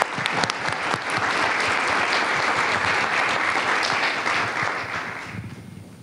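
Audience applauding: many hands clapping that swell early, hold steady, then die away about five seconds in.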